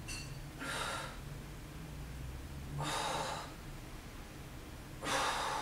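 A woman breathing hard during diamond push-ups: three forceful exhalations, about two seconds apart.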